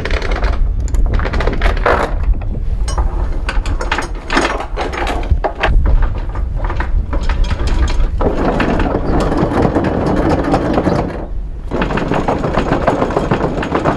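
Anchor chain clanking and rattling on a boat's anchor windlass gypsy, with sharp clicks in the first half giving way to denser, continuous clatter from about 8 seconds in.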